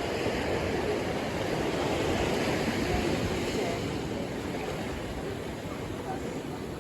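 Ocean surf breaking and washing up the beach, a steady rush that swells a little a couple of seconds in and eases off toward the end.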